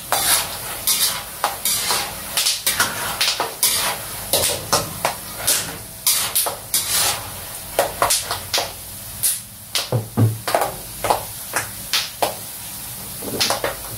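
A spatula stirring peanuts being fried in an aluminium wok: irregular scraping strokes, about two a second, with the nuts rattling against the metal over a steady hiss.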